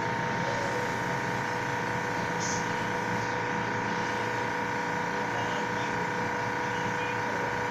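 Airbrush air compressor running with a steady, even hum.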